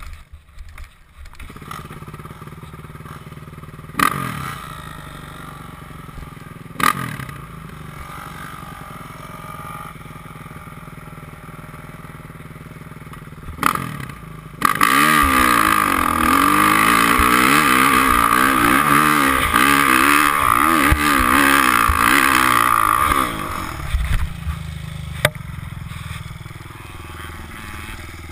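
Kawasaki KX450F dirt bike's four-stroke single-cylinder engine idling steadily, with a few sharp knocks, then revving hard and rising and falling in pitch for about eight seconds as the bike is ridden off, easing lower near the end.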